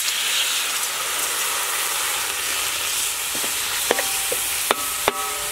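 Water sizzling as it hits shrimp paste in a hot steel wok, a steady hiss that is strongest at first. From about four seconds in, a metal spatula stirs and strikes the wok three times with ringing clanks.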